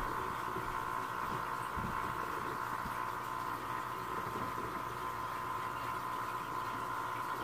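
Aquarium filter running: a steady hum and hiss of water moving through the tank's pump, with faint irregular bubbling.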